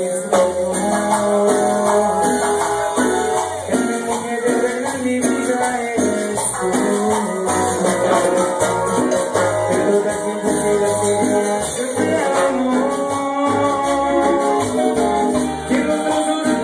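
Live Latin band music played loud through a club sound system: a singer's voice over keyboard, bass and shaker-type percussion, with a steady rhythm.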